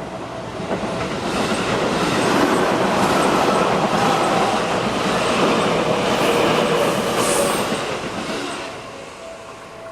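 A Seibu Shinjuku Line train passing over a level crossing: its sound builds about a second in, holds strongly for several seconds, and dies away near the end. The crossing's warning bell keeps ringing throughout.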